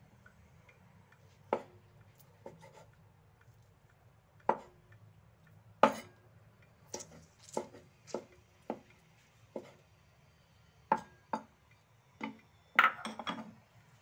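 Cleaver chopping dried Chinese mushrooms on a chopping board: irregularly spaced sharp knocks, some much louder than others, with a quick cluster of knocks near the end.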